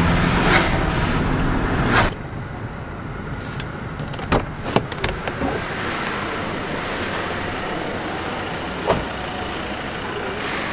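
Toyota car's cabin noise, a steady low engine and road rumble, for the first two seconds, then quieter surroundings. About four to five seconds in come a few sharp clicks of the car's door handle and latch as the door is opened, and one more click near the end.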